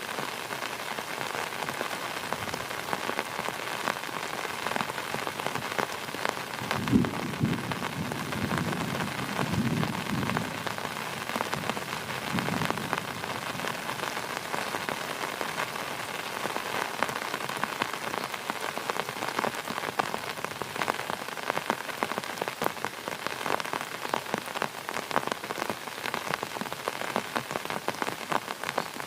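Heavy rain falling steadily, a dense patter of drops. About seven seconds in, a low rumble of thunder rolls for several seconds.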